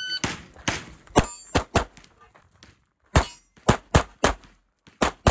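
A shot timer's start beep, then rapid pistol fire from a CZ Shadow 2, about a dozen shots in quick pairs and strings. About a second in, a hit on a steel target rings briefly.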